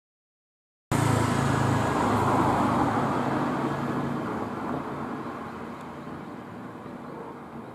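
A vehicle passing close by and then moving away, loud as it starts about a second in and fading steadily after.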